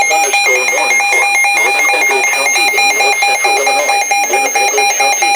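Weather radio alert alarm going off for an incoming warning: several steady high-pitched tones sound together with a slight fluttering pulse, over a broadcast voice.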